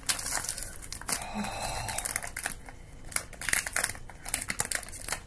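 Clear cellophane wrap being torn and peeled off a cardboard fragrance box, crinkling and crackling irregularly.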